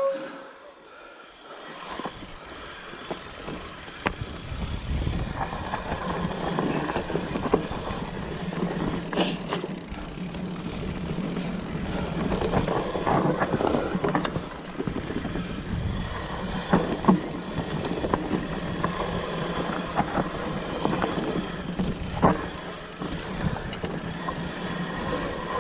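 Specialized Turbo Levo electric mountain bike riding down a dirt forest trail: tyres rolling over dirt, roots and twigs, with the bike rattling and short knocks as it hits bumps. Quieter at first, then louder from about five seconds in.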